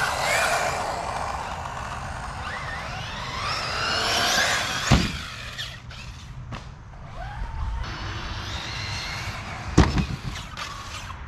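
A 1/8-scale RC buggy running on a dirt track, its motor whine rising and falling in pitch as it speeds up and slows down. Two sharp knocks come about five seconds in and near the end.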